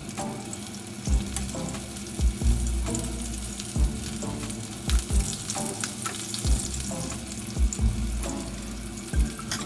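Food sizzling as it fries in a pan while being stirred. Under it runs background music with a deep, regular beat.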